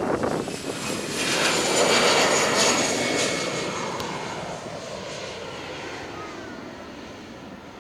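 Jet airliner passing by: engine noise with a high whine swells to its loudest about two seconds in, then fades away while the whine slides lower.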